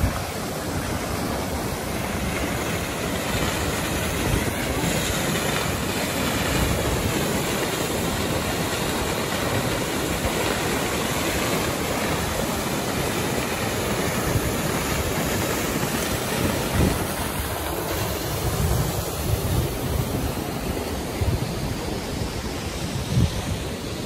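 Svartifoss waterfall rushing steadily, a loud constant roar of falling water, with a few short low thumps in the second half.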